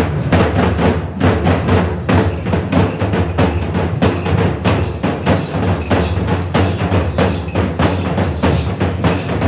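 Traditional Kerala temple percussion ensemble (melam) drumming, with fast, dense strokes several times a second that go on without a break.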